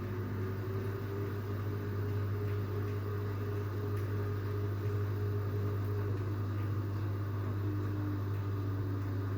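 LG FH4A8TDN2 front-loading washing machine running on its spin cycle: a steady low hum with faint whining tones above it that drift slightly in pitch.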